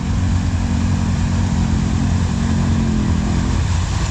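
ATV engine running at steady revs under a heavy rush of noise; the upper part of its hum fades out about three and a half seconds in.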